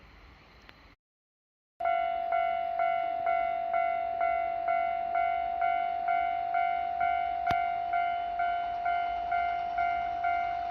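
Japanese railway level-crossing warning bell ringing, a repeated electronic ding about twice a second, starting suddenly just under two seconds in: the signal that a train is approaching and the crossing is closing.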